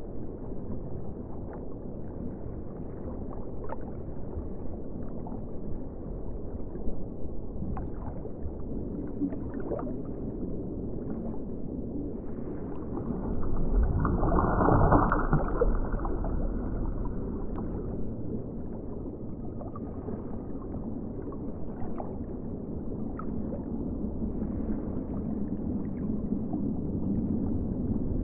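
Underwater ocean ambience: a steady muffled rush of water with scattered faint clicks, swelling louder for a couple of seconds about halfway through.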